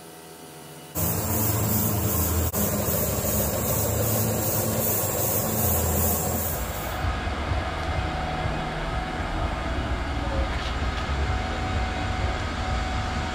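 Milling machine skimming the deck face of an aluminium Brodix V8 cylinder head, taking about 6 thou off to clean up where a piston struck it: the machine starts abruptly about a second in, running steadily with a cutting hiss that pulses a little over twice a second with each cutter pass and one sharp click early on. The pulsing stops suddenly around seven seconds in, leaving a steady mechanical noise.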